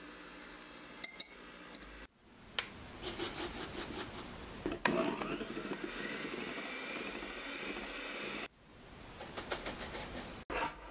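Electric hand mixer with wire beaters whipping egg whites into meringue in a glass bowl: a steady motor whir with the beaters rattling and scraping against the glass. The sound breaks off briefly about two seconds in and again near the end.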